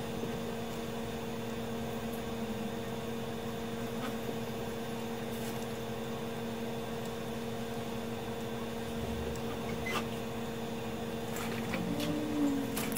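Hot-air rework station blowing, a steady hum and hiss, as it heats capacitors off a circuit board; a few light clicks near the end.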